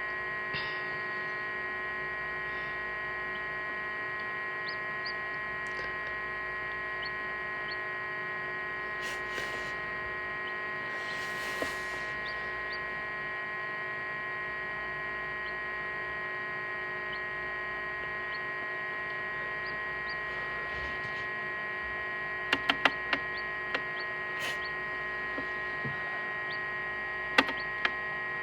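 Egg incubator running with a steady electric hum made of several fixed tones. A few short sharp clicks come about three-quarters of the way through and again near the end.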